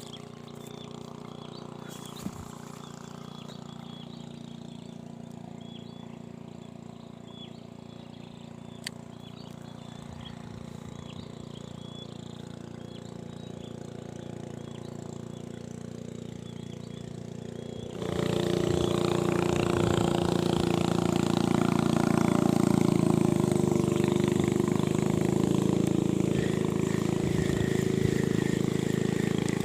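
An engine hums steadily at a distance, with short high chirps repeating about once a second. About two-thirds of the way through, the sound jumps abruptly to a much louder, close engine running steadily.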